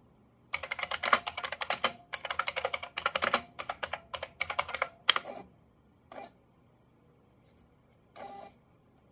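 Fast typing on a beige 122-key terminal keyboard, a quick run of sharp key clicks lasting about five seconds, then a single keystroke and a short burst near the end.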